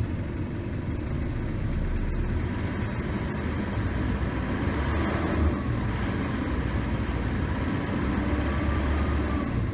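Isuzu D-Max pickup engine held steady at about 2,000 rpm, with the air-conditioner blower running at full, during a test of an AC that is not cooling.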